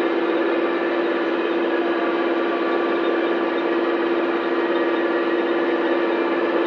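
Massey Ferguson 5460 Dyna-4 tractor and Claas Rollant 46 RC round baler running steadily at working speed, a constant hum with one strong steady tone.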